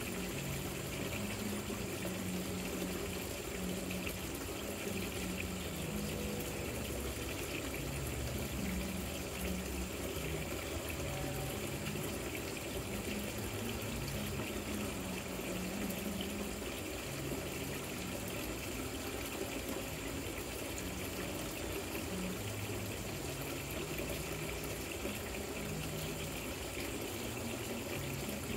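Rock water fountain running, its water trickling and splashing steadily.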